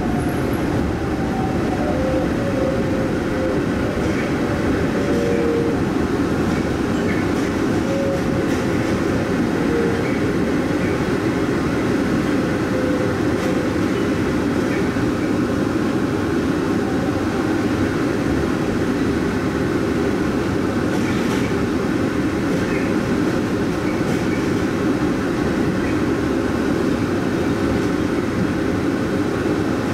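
Hong Kong airport automated people-mover shuttle train running steadily through a tunnel, heard from inside the cabin as an even running rumble. A faint whine fades out during the first several seconds.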